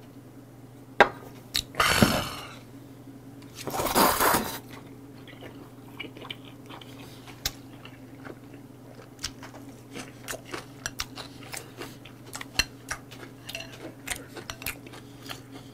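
A person slurping noodles loudly twice, about two and four seconds in, then chewing with many small wet clicks and smacks. A low steady hum sits underneath.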